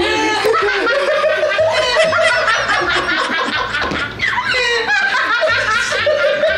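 A group of people laughing hard at once: overlapping giggles, snickers and high laughter without a break.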